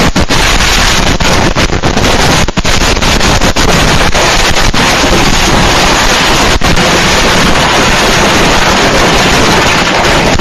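A cache of consumer fireworks going off all at once: a continuous, overloaded roar shot through with rapid cracks and bangs, so loud it saturates the security camera's microphone.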